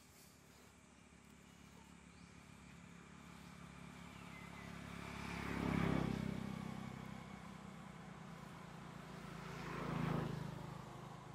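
Two motor vehicles passing by, one after the other. Each engine grows louder, peaks and fades, the first about halfway through and the second about four seconds later.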